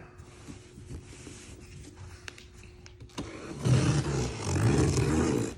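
A large cardboard box being handled and opened: faint rustling with a few clicks, then about three seconds in a loud scraping, tearing rasp of cardboard and packing tape that lasts about two seconds and stops suddenly.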